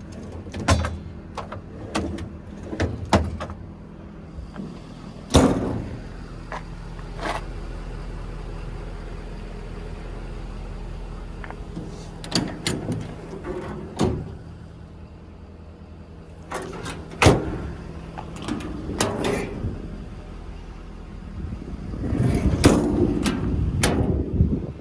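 Service truck toolbox compartment doors and latches clicking and clunking as they are opened and shut, a dozen or so separate knocks, over a steady low hum. Near the end comes a louder stretch of rattling and clatter.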